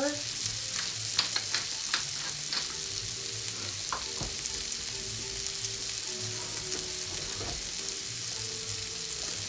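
Mushrooms sautéing in a pan, a steady sizzling hiss, with a few light clicks and knocks of utensils in the first few seconds.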